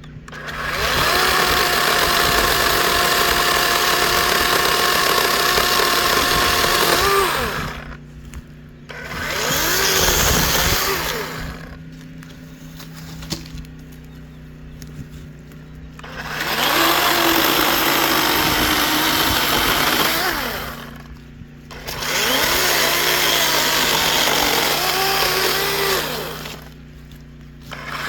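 DeWalt 20V brushless 12-inch cordless chainsaw cutting pine logs in four runs, the longest about seven seconds, stopping between cuts. The motor's pitch drops away as the trigger is released at the end of each run.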